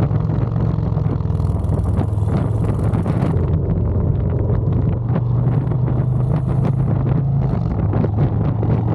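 Motorcycle engine running at steady riding revs, with wind noise on the microphone.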